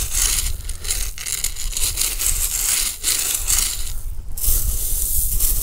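Playground gravel crunching and scraping as it is dug through and sifted, the search for a coin target the metal detector has just signalled.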